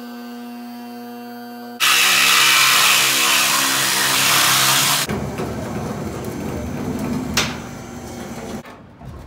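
A steady hum, then about two seconds in a corded reciprocating saw starts cutting through the sheet-metal floor pan of a 1965 Dodge Dart, loud for about three seconds. After it stops, quieter scraping and rattling with a single sharp knock.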